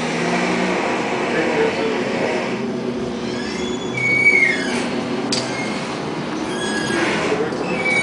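Tram running on street rails: a steady rumble of wheels and motor, with a short high squeal of the wheels on the rails, falling in pitch, about four seconds in and again near the end.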